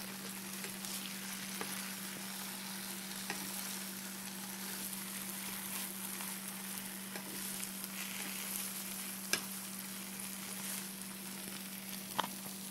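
Egg omelet frying in butter in a Bialetti Aeternum nonstick ceramic sauté pan, a steady sizzle. A few sharp knocks sound over it, the loudest about nine seconds in and another near the end.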